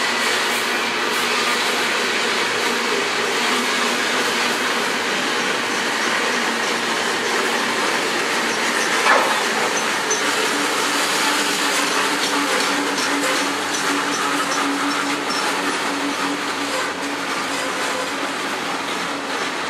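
Freight train of loaded container flatcars rolling steadily past, its wheels rumbling and rattling on the rails, with one sharp louder clack about halfway through.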